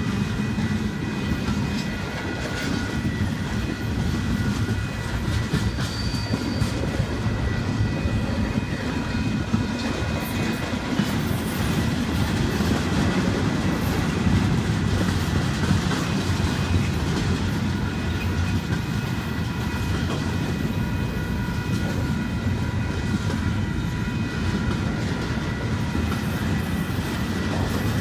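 Double-stack intermodal well cars of a freight train rolling past close by: a steady rumble of steel wheels on rail with a rapid clickety-clack of wheels over the track.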